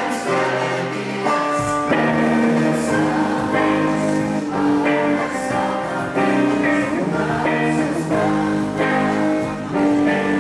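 Live band music: a man sings lead over electric guitar, with bass guitar joining in low about a second and a half in.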